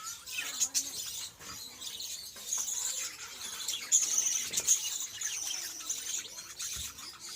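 Parrots chattering: a continuous run of high-pitched chirps and squeaks, with a few louder sharp calls about four seconds in.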